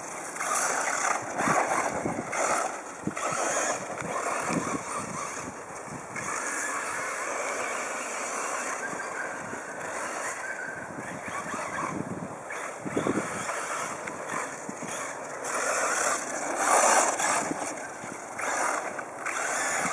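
Radio-controlled off-road buggy driving on a dirt track: its motor whine rises and falls with the throttle over a steady rushing noise.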